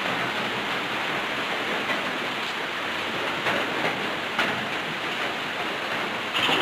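Steady rain falling, a continuous hiss with a few sharper drop taps.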